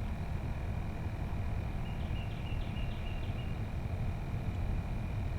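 Boat motor running steadily at trolling speed, a low even rumble with a faint high whine over it. A few faint short chirps come about two seconds in.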